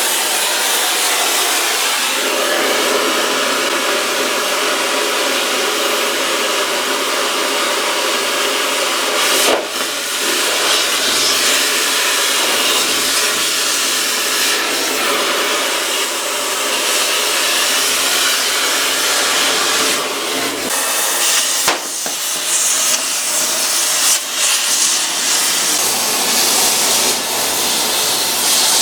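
Oxy-fuel cutting torch hissing steadily as it burns into the steel hull plate, with a few sharp pops along the way.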